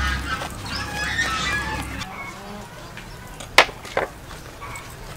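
Two sharp knocks about half a second apart as a cut jackfruit is handled on a wooden cutting board. Bird calls sound in the background during the first two seconds.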